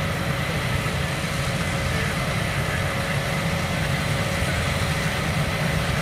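A heavy engine running steadily: an even low drone with a faint constant whine above it.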